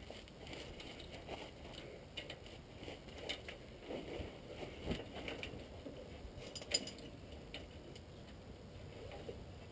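Faint clinks and knocks of hand tools on the steel steering parts of a Land Rover Defender's front axle while the track rod is worked on, with one sharper click about seven seconds in.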